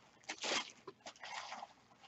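Soft rustling of packaging as a gym bag is handled and unwrapped by hand, with a stronger rustle about half a second in and a softer one later.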